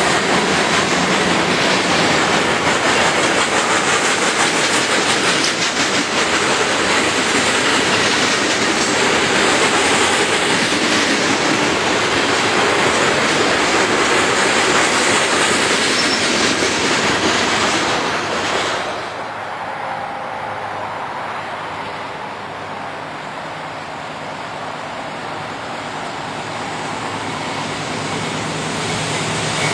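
Freight train cars rolling past, a steady loud rumble and clatter of wheels on rail. About two-thirds of the way through it gives way suddenly to a quieter, duller rumble that slowly builds as another train approaches.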